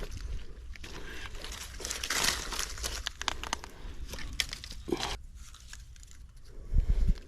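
Rustling and crinkling with many sharp little clicks, and a short burst of heavy low thumping close to the end.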